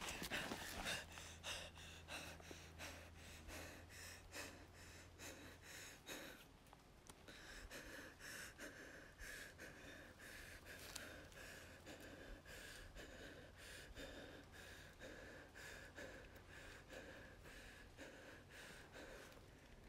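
Faint, quick breathing of a frightened young woman, short gasping breaths that slow down and fade as she holds still.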